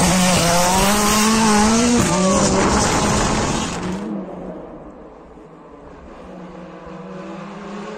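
M-Sport Ford Fiesta WRC rally car's 1.6-litre turbocharged four-cylinder engine revving hard as it passes close by, climbing in pitch through a gear with a sharp drop at the shift about two seconds in. About four seconds in the sound cuts abruptly to a far quieter, distant rally car engine that slowly grows louder as it approaches.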